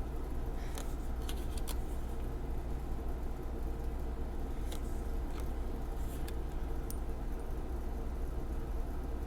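Tarot cards being handled and flipped, giving a handful of faint sharp clicks and ticks in two clusters, over a steady low hum.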